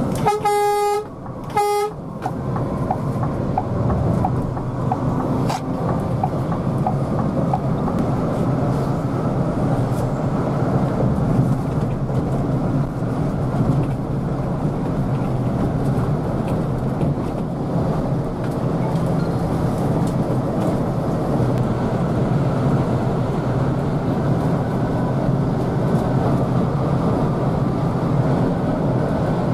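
A vehicle horn sounds twice, a long blast then a short one, about a second in. After it comes the steady running drone of the Scania K360IB coach at highway speed, engine and tyre noise heard from inside the cabin.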